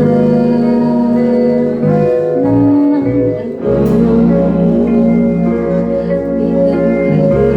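Live band playing with electric guitars over held chords. About two seconds in, the low end drops away for a moment, and the full band comes back in on a sharp hit just before the four-second mark.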